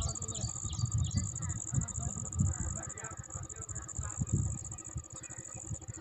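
Wind buffeting the microphone in irregular low rumbles, over a steady high-pitched insect drone.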